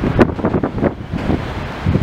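New York City subway train of R160 cars on the F line pulling slowly into the station, its wheels knocking over the rail joints in an irregular run of clunks over a steady rumble. Wind buffets the microphone.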